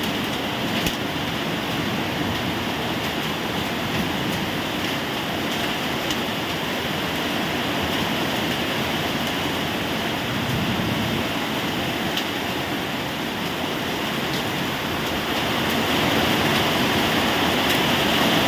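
Rain falling steadily, an even hiss with a few sharp drip-like ticks, getting somewhat heavier near the end.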